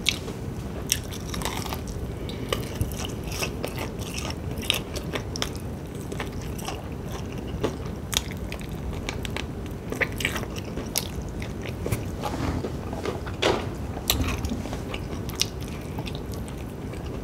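Close-up eating of fried chicken off the bone: biting and chewing, with irregular short wet clicks from the mouth.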